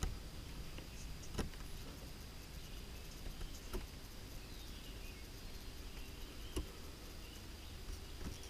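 Faint woodland background with a steady high-pitched whine and four short, sharp clicks of handling spread through it.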